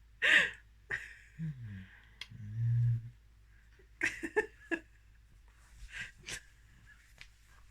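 A man making loud, strange, non-speech vocal noises: a short shrill screech right at the start, a falling low groan and a low hum, then a run of sharp clicking squawks in the middle and again near the end.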